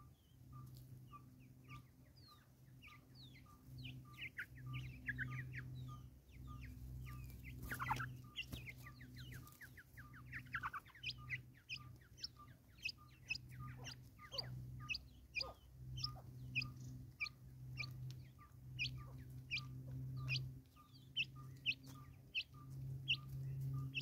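Natal spurfowls feeding at seed on a wooden log: quick sharp pecks with short chirping and clucking notes, busiest in the second half. Underneath runs a steady low hum and a faint note repeating about twice a second.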